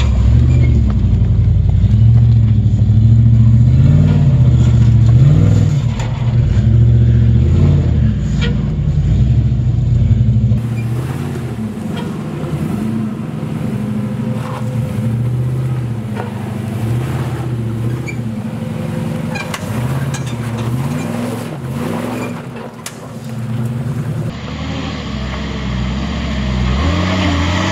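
Nissan GU Patrol 4WD's engine revving up and down as it crawls up a rocky step, its pitch rising and falling with the throttle. It is loudest in the first ten seconds and quieter after a cut. Near the end another 4WD's engine takes over.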